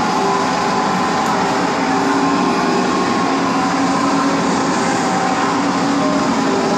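Steady, loud din of a large crowd echoing through an indoor sports hall.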